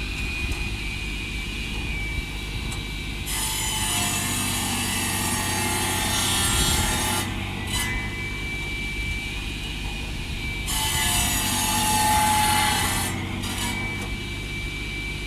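Logs being sawn for firewood over the steady running of a small Ford diesel tractor. The cutting starts about three seconds in and goes on in long stretches, stopping briefly twice.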